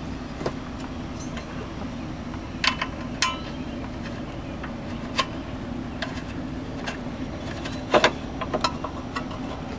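Scattered light metallic clicks and taps of a bolt and hands working in the tractor's sheet-metal dash while a bolt is being threaded in, over a steady low hum.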